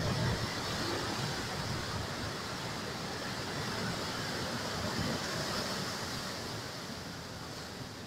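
Ocean waves breaking and foaming surf washing in, a continuous rush of water. A wave crashes loudest right at the start, another swells about five seconds in, and the sound eases near the end.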